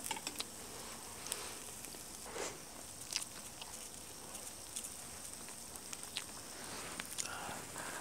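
Chunks of beef sizzling faintly on a hot grilling stone: a steady high hiss with scattered small pops and clicks.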